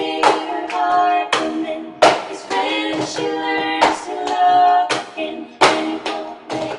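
Three women's voices singing a cappella in close harmony, keeping the beat with sharp knocks and claps of cups on a tabletop, the cup game.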